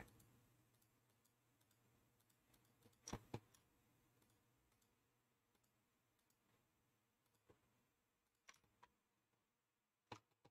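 Near silence with a few faint computer mouse and keyboard clicks: a quick pair about three seconds in, then single clicks spaced out near the end.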